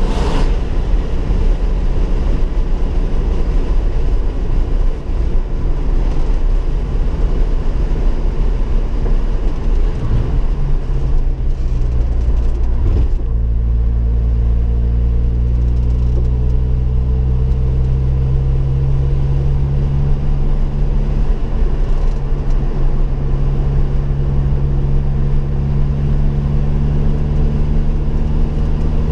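Ford Focus RS engine and road noise heard from inside the cabin at track speed: a loud, steady drone, then from about halfway through an engine note that rises steadily as the car accelerates hard out of a corner.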